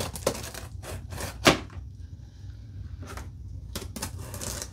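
Knife slitting the packing tape on a cardboard shipping box: scratching and scraping against the cardboard, with one sharp click about a second and a half in.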